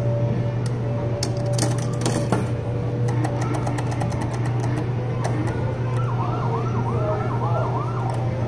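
Coin-operated boat kiddie ride running with a steady motor hum, overlaid by the dashboard's electronic siren sound effect, a warbling wail that comes back about six seconds in, and sharp clicks of the dashboard buttons being pressed.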